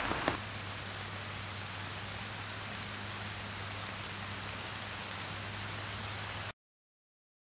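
Steady rain falling: an even hiss that cuts off suddenly near the end.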